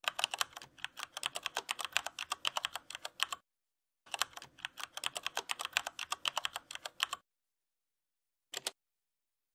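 Computer keyboard typing sound effect for text appearing on screen: rapid key clicks in two runs of about three seconds each with a short break between, then one brief burst of clicks near the end, with complete silence in between.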